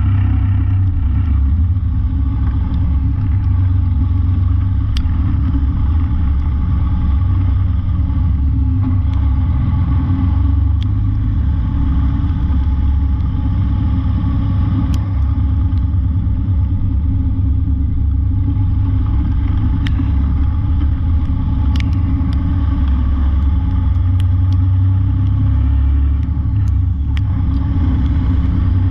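Steady low rumble of a diesel truck running, with a few faint clicks scattered through it.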